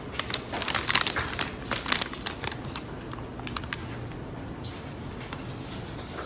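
Paper bag crinkling and crackling in quick irregular clicks as it is pulled down over a cat's head. From about three and a half seconds in, a steady high-pitched hiss takes over.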